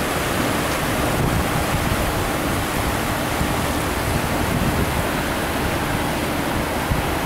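Steady rush of churning, turbulent water from a power plant's outflow, with a faint steady hum underneath.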